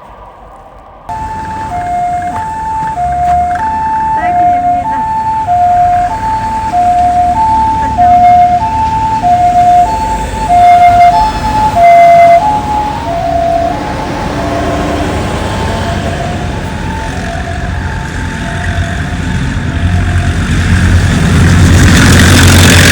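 Two-tone 'pii-poo' siren of a Japanese ambulance, a higher and a lower note alternating evenly, starting abruptly about a second in. Past the halfway point the notes drop slightly in pitch and fade, while a low traffic rumble grows louder toward the end.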